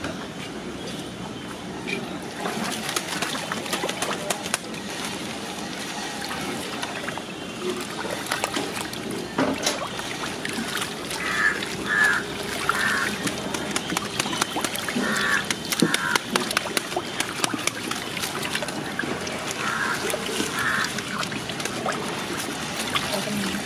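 A hand stirring and swishing a milk mixture in a steel basin, making a steady wet sloshing and squelching with many small clicks and scrapes against the metal. A few short high-pitched calls are heard in the background, in pairs, around the middle and near the end.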